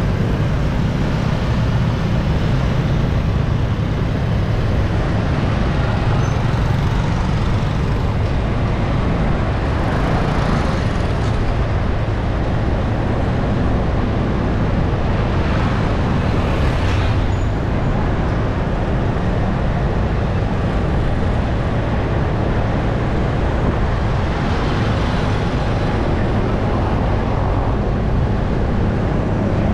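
Street traffic noise: a steady low rumble of engines and tyres, with a few louder vehicles passing close by.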